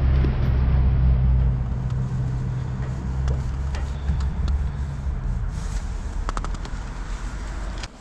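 A motor vehicle's engine running nearby: a steady low hum that slowly fades, with a few light clicks near the end.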